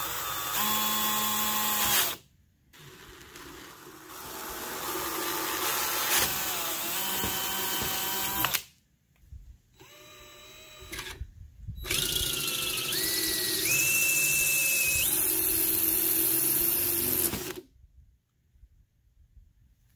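DeWalt 20V cordless drill boring through PVC pipe in several runs with short pauses, first with a twist bit for a pilot hole, then with a hole saw. The motor whine steps up in pitch as it speeds up, and the drilling stops a couple of seconds before the end.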